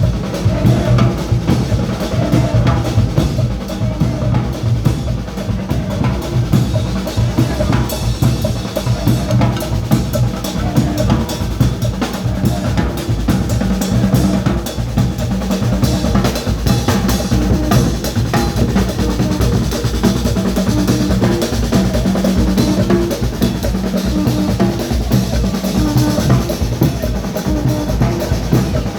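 Carnival band drumming: a dense, steady beat of bass and snare drums, with some low held notes underneath.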